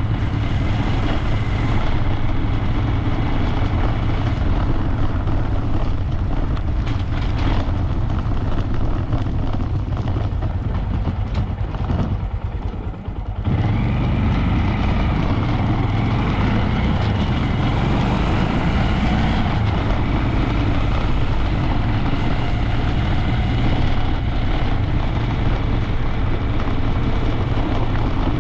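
Honda Grom 125's single-cylinder engine running on the move, with wind rushing over the microphone. About twelve seconds in, the sound drops off for a moment, then picks back up with a rising engine note.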